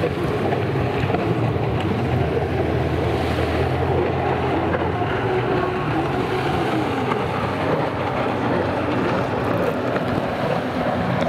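Stand-up racing jet ski engines whining, their pitch repeatedly rising and falling as the riders throttle on and off through the buoy turns, over wind noise on the microphone.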